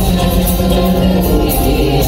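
Choir singing with a live band accompanying, dense music with a held low note through most of it.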